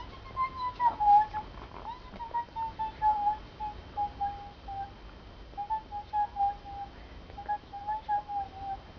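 Person whistling a slow, gentle tune that hovers around one pitch and drifts slightly downward, broken into short phrases.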